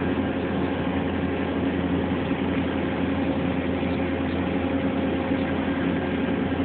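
CNC machine running through its program: a steady, continuous hum with a few level tones over it and no breaks.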